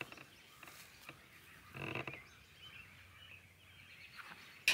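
Quiet pasture ambience with one short animal call about two seconds in.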